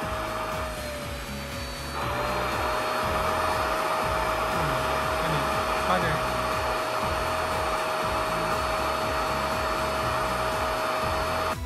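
Iris Ohyama rinser cleaner's suction motor running with a steady whine and air rush; its pitch and loudness dip for about a second, starting about a second in.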